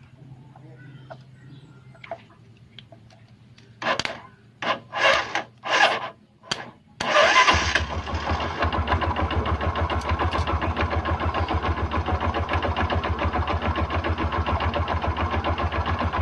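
Bajaj Rouser 135 LS motorcycle's single-cylinder four-stroke engine cranked by its electric starter in several short bursts, catching about halfway through and then idling steadily with a fast, even beat. It is a test start on the ignition switch: the engine starting shows the starter relay still works.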